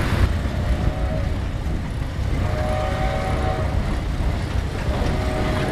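110 HP Case steam traction engine travelling slowly past, a steady low rumble. A few short steady tones sound over it, about half a second in, near the middle and near the end.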